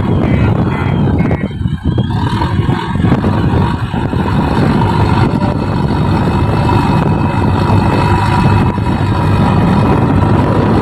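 JCB backhoe loader's diesel engine running under load while it works, with a steady high whine over the engine noise. The sound dips briefly about two seconds in.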